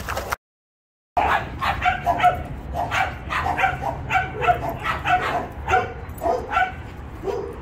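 Dog barking in play, a quick run of short barks about two to three a second, after a brief drop-out just under a second in.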